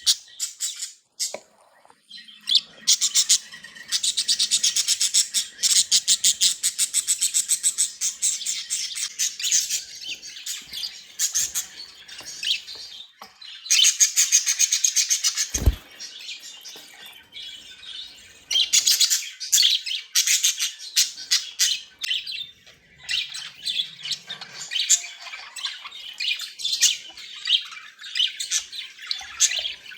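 Budgerigars chattering and warbling: a dense run of rapid chirps and squawks, with a short lull near the start. A single low thump about halfway through.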